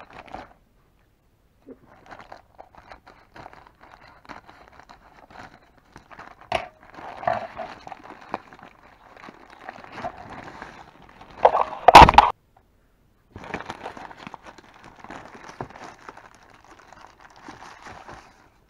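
Grey plastic mailer bag crinkling and rustling as it is handled and opened by hand, with one loud, sharp tear about two-thirds of the way through, followed by more crinkling of plastic packaging.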